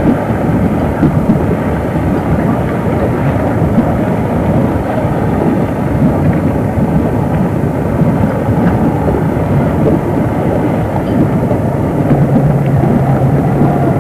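Steady low rumble of a motorboat running, with wind on the microphone; a steady engine hum comes in about twelve seconds in.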